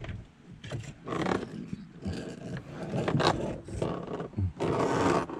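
Plastic instrument-cluster trim surround of a Mercedes dashboard being lifted out and handled: irregular plastic rubbing and scraping, with a sharp click about three seconds in and a longer scrape near the end.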